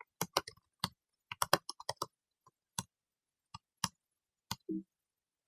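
Irregular keystrokes on a computer keyboard, short quick runs of clicks with pauses between them, typing a command to install the Jaeger CRD.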